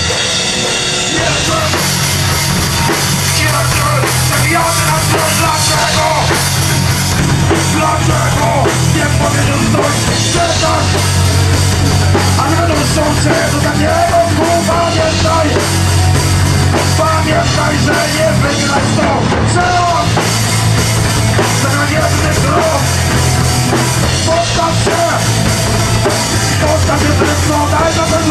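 Live metal band playing loud: electric guitar and a drum kit, with a vocalist singing into the microphone over them.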